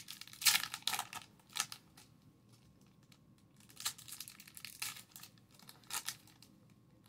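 Foil trading-card pack wrapper being torn open and crinkled in the hands: a run of sharp crackles near the start and another from about four to six seconds in.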